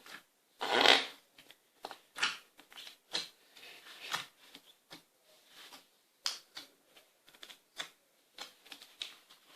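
A large mass of slime being squeezed and kneaded by hand, giving irregular sticky clicks and pops. The loudest squelch comes about a second in.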